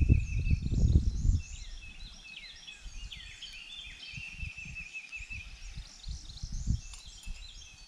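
Several birds singing and chirping, one with a steady repeated trill, over wind buffeting the microphone, heaviest in the first second and a half and then in lighter gusts.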